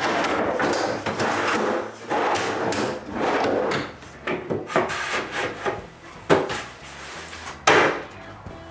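Wooden cabinet parts sliding against each other with a long rubbing sound, twice in the first few seconds, then several knocks as pieces are set into place.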